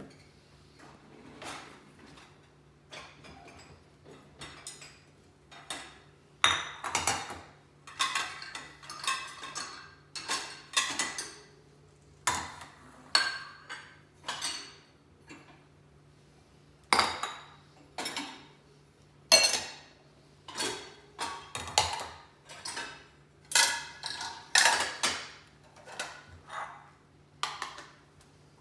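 Dishes and cutlery being unloaded from a dishwasher: an irregular run of clinks and clatters as plates, glasses and utensils are lifted out and set down, with a faint steady low hum underneath.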